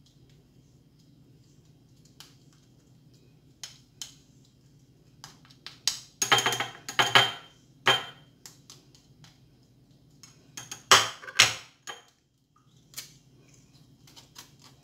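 Plastic spoon scraping and clinking against a small metal strainer while pressing grated cucumber through it to strain out the juice, in scattered clicks with two bursts of harder scraping, the loudest about six to eight seconds in and again about eleven seconds in. A faint steady low hum runs underneath.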